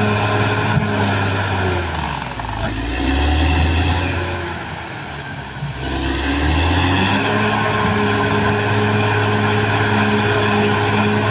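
Caterpillar D6R XL bulldozer's diesel engine running hard. About two seconds in, the engine note sags lower and quieter, then climbs back to its full steady pitch about seven seconds in.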